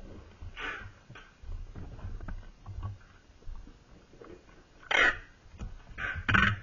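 Bubble wrap and cardboard box flaps rustling and knocking as the box is closed, then packing tape pulled off a handheld tape gun onto the box with loud tearing screeches, once about five seconds in and twice more near the end.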